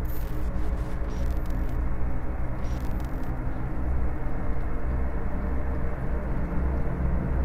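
A steady low rumbling noise, strongest in the deep bass, with a few faint high ticks in the first few seconds.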